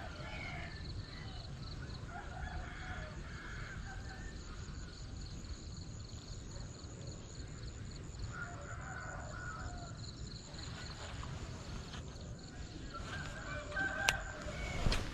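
Roosters crowing four or five times, each call lasting about a second, over a steady high-pitched drone and a low rumble. Two sharp clicks near the end.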